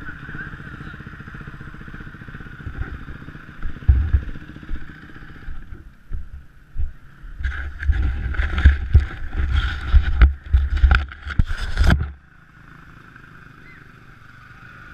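Motocross bike engines running on the track, a steady drone at first. From about seven and a half seconds to twelve seconds there is a louder, rough stretch of heavy low thuds and crackle, then it drops back to a quieter drone.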